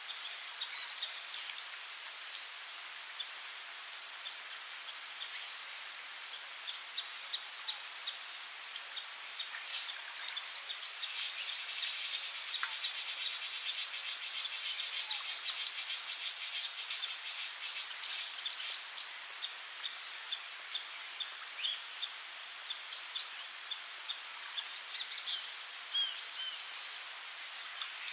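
Rainforest night chorus of insects, crickets among them: a steady, dense, high-pitched trilling. Brief louder high calls break through a few times, twice as quick pairs, with faint bird chirps scattered in between.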